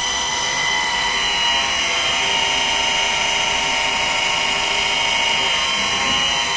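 ABB ACS variable-frequency drive running its motor, giving a steady electrical whine made of several high tones. Some of the tones shift in pitch as the drive's output frequency changes.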